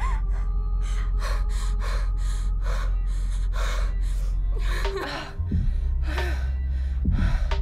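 A woman gasping for breath in quick, heavy breaths, about three a second, over a steady low music drone. She is catching her breath after coming close to death. About five seconds in, the drone changes and the breaths carry short catches of voice.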